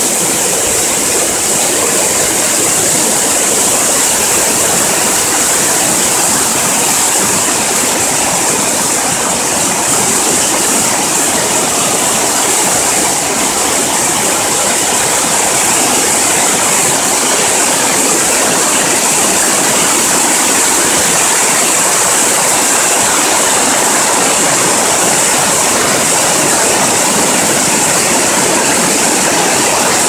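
Waterfall: a loud, steady rush of white water pouring over rock cascades close to the microphone.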